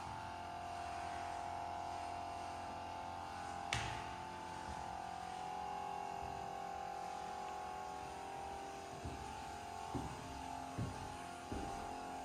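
A steady faint hum of a few close-pitched tones, with one sharp click about four seconds in and a few soft footsteps in the last few seconds.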